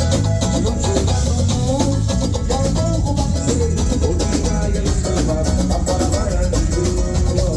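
A live band playing at sound check: a drum kit keeping a steady beat with regular cymbal strokes, under guitar and a strong bass line.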